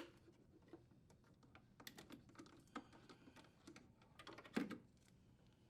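Faint, scattered small clicks and ticks of wires being worked out of a plastic retaining hook and the refrigerator's condenser fan motor wire connector being unplugged, with a short cluster of louder clicks past the middle.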